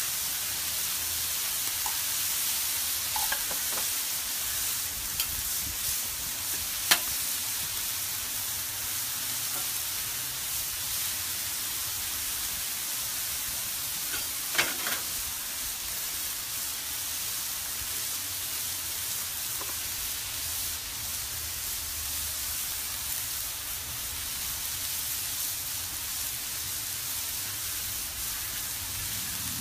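Chicken pieces and diced zucchini and squash sizzling steadily on a hot Blackstone steel flat-top griddle. There are a few sharp clicks: one about seven seconds in, and another near fifteen seconds as the metal spatula pushes the vegetables across the griddle.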